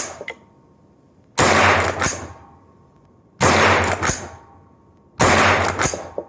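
Three shots from a Schmeisser SP9 9mm straight-pull rifle, about two seconds apart. After each shot come sharp metallic clacks as the straight-pull action is worked by hand.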